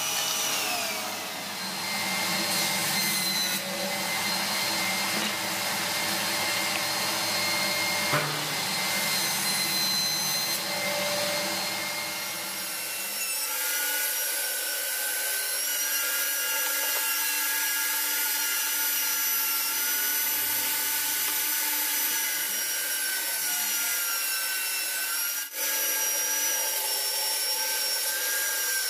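Electric motor of a workshop power tool running steadily with a whining hum. The sound changes abruptly about 13 seconds in and again near 25 seconds, and there is a single sharp knock about 8 seconds in.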